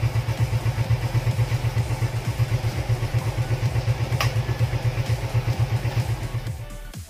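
Suzuki Smash 115's single-cylinder four-stroke engine idling with an even, rapid low throb. There is a brief click about four seconds in, and the engine fades out near the end.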